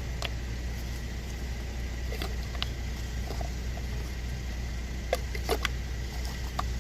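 Ignition coil packs being fitted back onto the spark plugs: a series of scattered clicks and knocks of plastic parts seating and being handled, clustered about two seconds in and again past five seconds. A steady low hum runs underneath.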